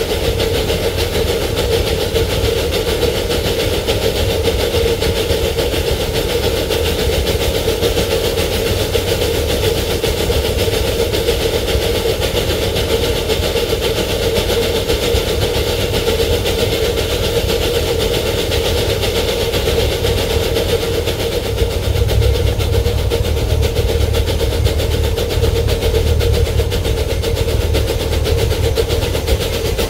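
Miniature ride-on railway locomotive running steadily along the track: an even engine drone over a low rumble from the wheels on the rails. The rumble grows heavier about twenty seconds in.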